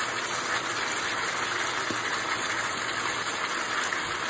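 Chicken thighs and onions sizzling steadily in hot oil in a wok as handfuls of sliced onion are dropped in.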